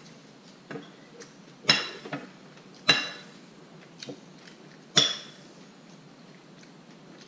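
Metal spoons clinking and scraping against ceramic bowls during eating: a few light taps and three sharper clinks that ring briefly, the last about five seconds in.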